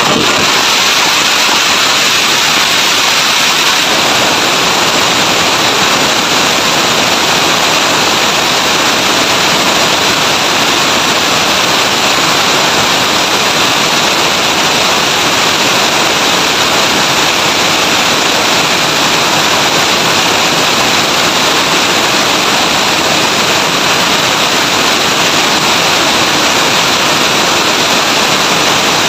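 Several small motorcycles with loud aftermarket exhaust pipes held at high revs together in a loudest-pipe contest, one steady, loud, distorted exhaust noise with no single engine standing out.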